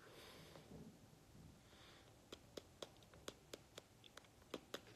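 Near silence: room tone, with a run of faint, short clicks about four a second through the second half.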